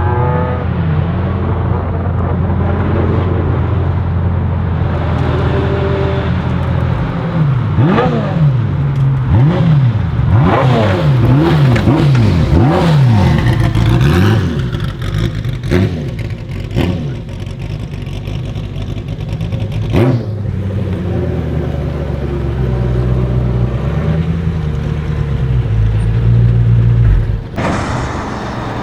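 Ferrari F40 LM's twin-turbo V8 through a straight-piped exhaust. It runs at a steady low note, then is revved up and down in quick repeated blips with sharp exhaust cracks, before settling back to a lower, steadier note.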